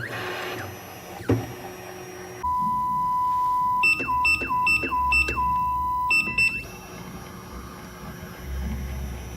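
A steady electronic tone holding one pitch for about four seconds, broken several times by quick higher chirps that slide back down to it.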